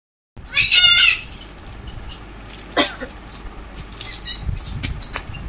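A bird squawking: one high, warbling squawk about a second in, then a short chirp near three seconds.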